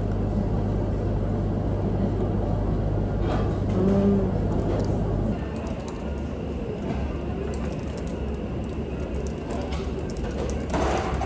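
Café room noise: a steady low hum, which changes to a lower, thinner hum about five seconds in. There is a brief knock near the end.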